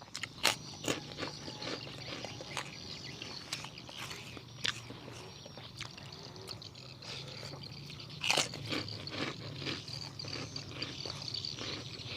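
Close-up chewing and crunching of chicken with irregular sharp crunches, the loudest about eight seconds in, over a steady high insect buzz.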